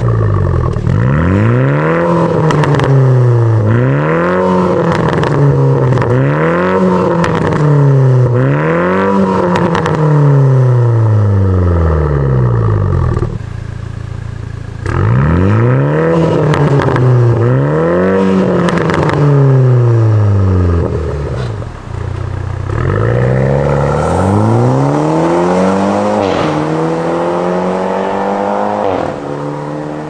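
Toyota Supra 2.0T's BMW B48 turbocharged inline-four revved again and again in short blips through a Fi Exhaust valvetronic catback, rising and falling about every two seconds. It drops back to idle twice, then gives a longer rev near the end that fades away.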